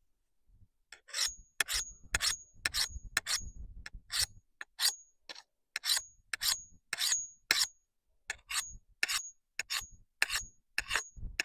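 A small axe's blade being sharpened on a steel rod: quick rasping strokes, about two a second, each ending in a short, high metallic ring. There is a brief pause about two-thirds of the way through.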